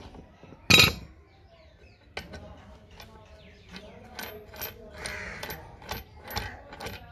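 Metal tools and iron pipe fittings being worked on during a hand-pump repair: one loud metallic clank about a second in, then a regular run of light metallic taps about twice a second in the second half.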